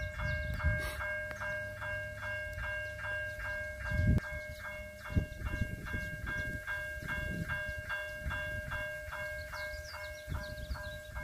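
Low rumble of a distant diesel freight train approaching along the line, with gusty wind on the microphone. Over it, a steady high tone pulses evenly about two to three times a second, and a few short high chirps come near the end.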